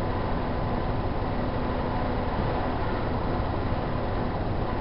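Steady room noise: an even low rumble and hiss with a faint steady hum, unchanging throughout.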